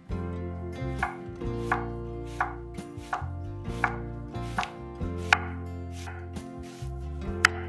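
A kitchen knife slicing a peeled onion half into thin half rings on an end-grain wooden cutting board, each cut ending in a crisp knock of the blade on the wood. The strokes come at an even pace of about three every two seconds, around ten in all.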